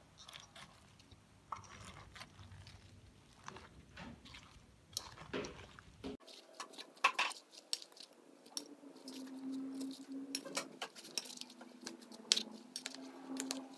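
A ladle tossing shredded cabbage and halved small white eggplants in fish-sauce dressing in a stainless steel bowl, with irregular clinks and scrapes against the metal bowl.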